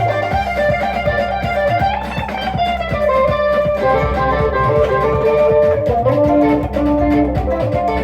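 Music: a plucked guitar playing a lead line over a steady drum beat and bass, with no singing.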